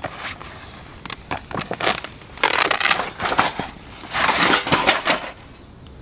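Rustling, crunching handling noise with scattered clicks as a folding Picogrill fire grill is unpacked and set up, in two main bursts of about a second each, the first around midway and the second near the end.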